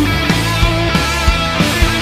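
Background instrumental rock music with guitar and a steady, driving drum beat.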